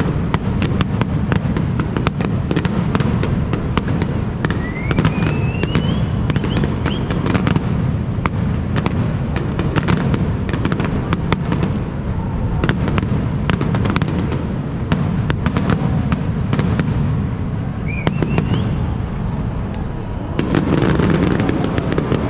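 Aerial fireworks display: a dense run of sharp crackles and bangs over a constant low rumble of bursting shells. A few rising whistles from ascending shells sound partway through and again near the end.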